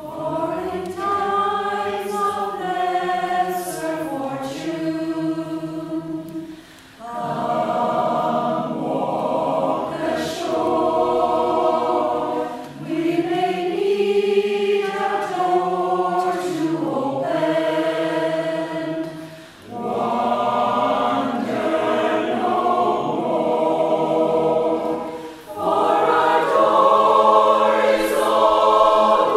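Choir singing a song in long sung phrases, beginning just after a brief hush, with short breaks between phrases about every six seconds.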